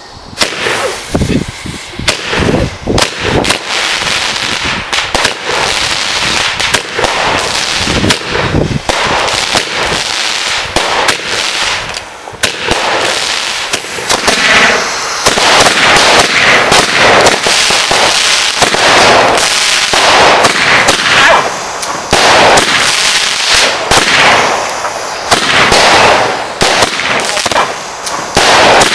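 Fireworks going off in a dense run of sharp bangs and crackles, getting louder from about halfway through.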